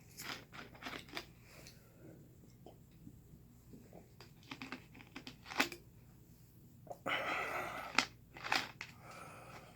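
Close mouth sounds of a person eating noodles: scattered wet clicks and smacks of chewing, with a slurp of about a second near seven seconds in.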